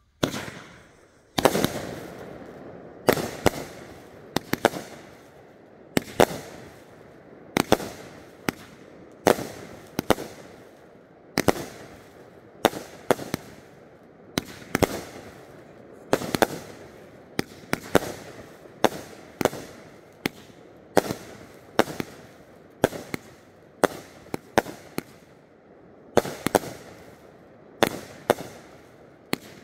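Fireworks finale: aerial fireworks bursting in quick succession, a sharp bang about every second or so, with crackling between the bangs.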